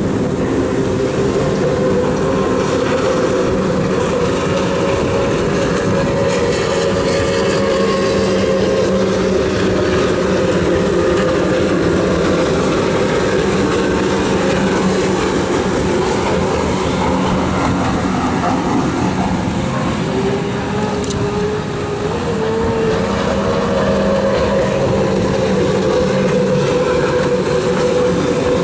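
Engines of racing powerboats running flat out at speed, a loud, steady drone; the note rises slightly about twenty seconds in.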